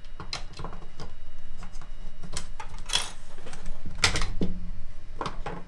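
Irregular clicks and knocks of a cordless screwdriver's plastic housing and internal parts being handled and pushed together by hand. The loudest knocks come about three and four seconds in.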